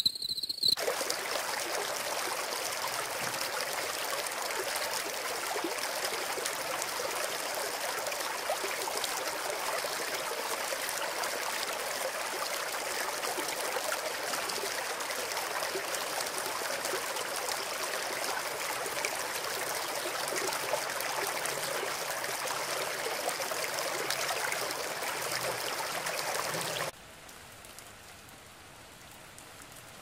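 Steady rushing sound of running water, with no rhythm or pitch, cutting off suddenly to a much fainter sound near the end.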